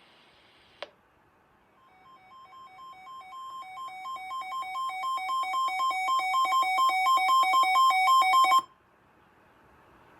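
Electronic alert alarm, most likely a weather radio's alarm: a click, then two tones alternating about four times a second and growing steadily louder for about seven seconds before cutting off suddenly.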